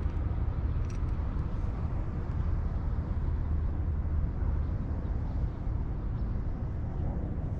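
Wind rumbling on the microphone, a steady low buffeting that rises and falls.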